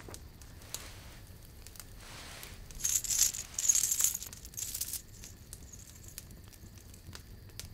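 A handful of gold coins jingling and clinking as they are poured from a cloth pouch into a hand, a burst of bright clinks about three seconds in lasting around two seconds.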